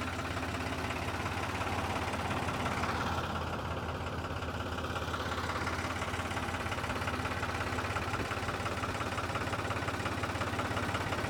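Engine idling steadily, a low, even hum with no change in load.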